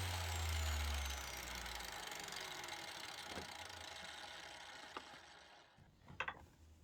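Angle grinder with a diamond disc spinning down after being switched off: its whine falls in pitch and fades away over a few seconds. A few light knocks follow.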